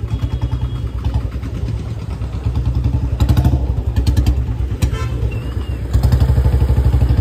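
Hero Splendor motorcycle's single-cylinder four-stroke engine running with a steady pulsing beat, growing louder about six seconds in.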